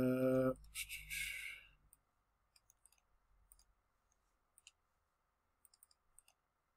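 A short hummed voice sound and a breath right at the start, then a few scattered, faint clicks of a computer mouse and keyboard.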